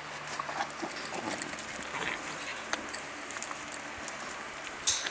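Alpacas nosing and moving right up against the phone: soft scattered rustles, small clicks and shuffles, with a brief louder rush of noise near the end.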